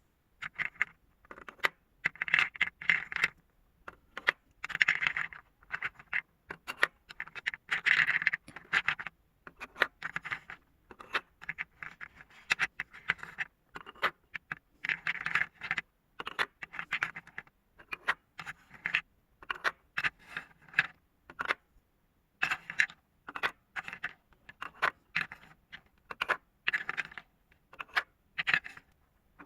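Marbles rolling and clattering down a marble run: bursts of rattling and sharp clicks as they run along the track and knock into its pieces, with short gaps in between.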